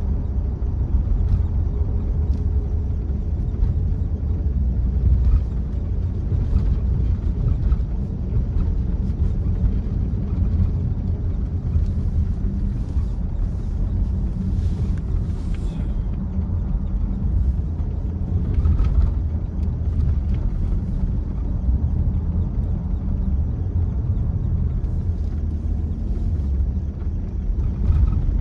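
Steady low rumble of a car driving on a snowy road, with a faint hiss that comes and goes now and then.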